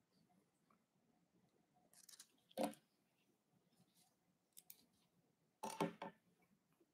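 Near silence broken by small handling sounds of a pen and papers on a podium close to its microphone: one sharp knock about two and a half seconds in, then a short cluster of clicks near the end.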